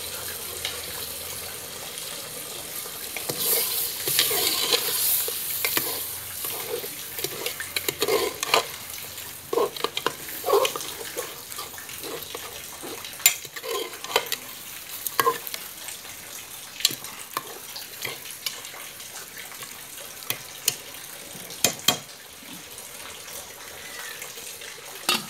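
A metal spoon and ladle stirring pork curry in a metal pot, with repeated clinks and scrapes against the pot's side, over the steady hiss of the curry sizzling and simmering on the fire. The hiss is strongest a few seconds in.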